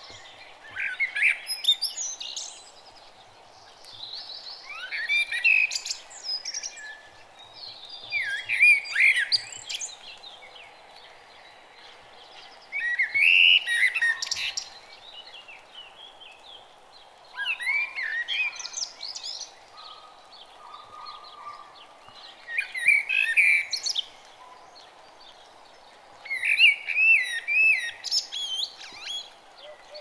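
Woodland songbirds singing: a quick, warbling song phrase about two seconds long comes every four to five seconds, over a steady faint background hiss.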